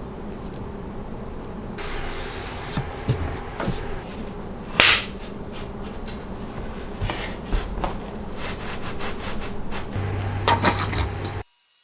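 Rubbing and scraping on wood with scattered knocks, one loud knock near the middle. It cuts off abruptly near the end.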